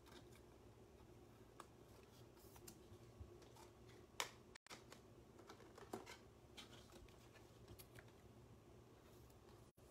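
Near silence with faint, scattered clicks and light rustles of trading cards being handled, one sharper click a little after four seconds.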